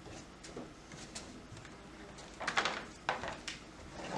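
A few short clicks and knocks from the sliding patio door's lock and keeper being worked, bunched about two and a half to three and a half seconds in and again near the end; the lock is not yet engaging.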